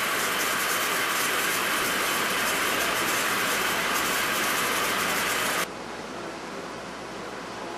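Metal lathe cutting an eccentric, weld-repaired steel diameter: a steady, loud machining noise with a strong hiss. About five and a half seconds in it drops abruptly to a much quieter steady hiss.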